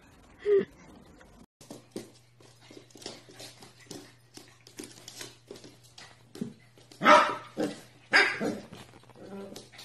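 Small puppy barking: four short, sharp barks in quick succession starting about seven seconds in, after a stretch of only faint light ticks.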